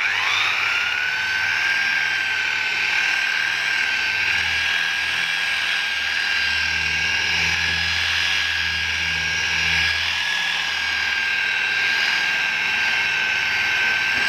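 Electric rotary car polisher starting up. Its motor whine rises in pitch over the first second, then runs at a steady high whine as the wool pad cuts compound into the paint to remove scratches.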